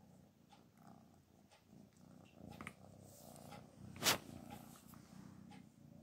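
Black cat purring close to the microphone, a faint steady low purr. Faint ticks come about once a second, and a sharp click sounds about four seconds in.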